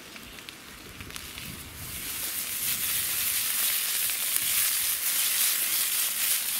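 Sausages sizzling in a frying pan over campfire embers. The sizzle becomes much louder about two seconds in, with small pops through it.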